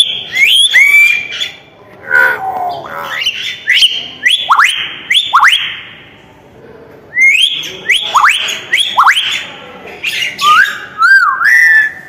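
Hill myna calling loudly: a run of shrill whistles, each rising and then dropping steeply, mixed with harsh notes. The calls come in two bouts, with a short lull about six seconds in.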